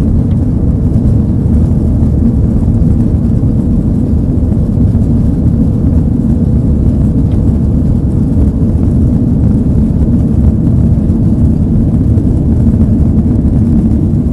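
Airbus A330-200 cabin noise during the climb after takeoff: the engines at climb power and the airflow over the fuselage make a loud, steady low drone.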